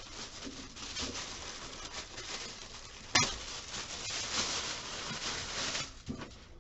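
Packaging rustling and crinkling as it is handled while a cash drawer is unpacked, with one sharp click about three seconds in.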